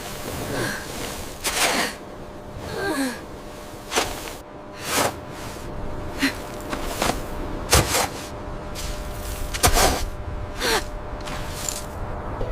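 A person gasping and breathing hard in short, irregular breaths, roughly one a second; a few of them carry a brief falling voiced groan.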